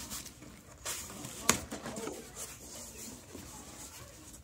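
Cardboard shipping box being opened by hand: flaps rubbing and scraping, with two sharp snaps about one and one and a half seconds in.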